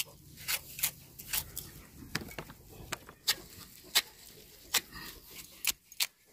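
Curved sickle blade shaving the skin off a large mankanda tuber and cutting into its flesh: a run of short, sharp scraping cuts, irregular, about two a second.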